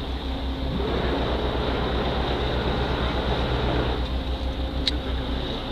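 Tour boat's engine running, a steady low throb of about nine pulses a second under a constant hiss, with a single sharp click near the end.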